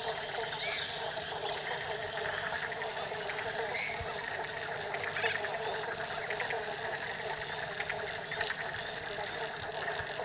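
Dense frog chorus: many frogs calling at once in a steady, overlapping din, with a few thin high notes above it and one sharp click about four seconds in.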